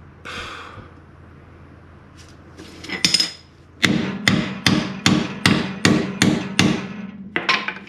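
Hammer striking a seized, rusted rear lower control arm bolt on a Jeep Wrangler to drive it loose: a quick run of about eight evenly spaced metal-on-metal blows, then two more near the end, each leaving a short ring.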